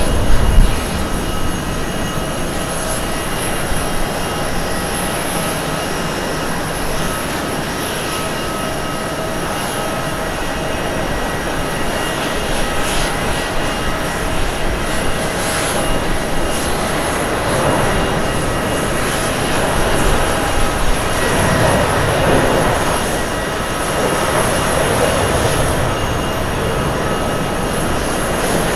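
Jet airliner's twin turbofans at takeoff power: a steady rushing noise with several high, steady whine tones, getting somewhat louder in the second half as an Airbus A330 rolls and lifts off. A brief low thump sounds just after the start.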